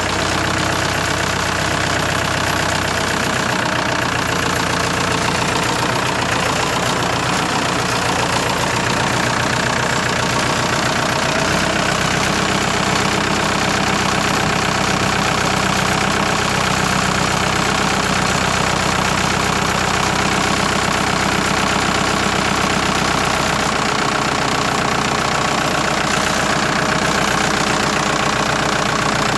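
Kubota tractor's diesel engine running steadily, with a slight change in its note about twelve seconds in.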